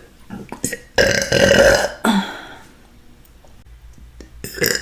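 A woman's loud burp, about a second long, starting about a second in. A brief, sharper sound follows near the end.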